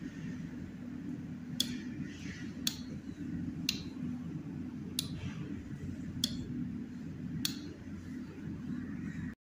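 Omron MY-series plug-in relays clicking in and out as the series-wired PNP proximity sensors switch them, six sharp clicks about a second apart. A steady low hum runs underneath.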